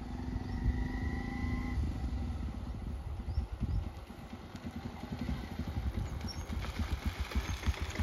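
A motorcycle engine running as the bike rides up the road toward the microphone and pulls up close.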